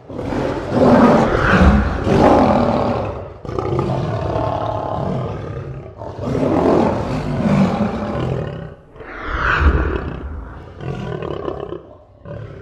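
Tiger roaring: a run of about five long, loud roars, each lasting one to three seconds, the later ones shorter.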